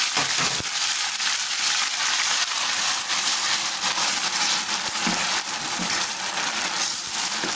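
Onions, garlic and roughly ground tomatoes sizzling in hot oil in a steel pot, stirred with a spatula: a steady frying hiss as the masala base cooks.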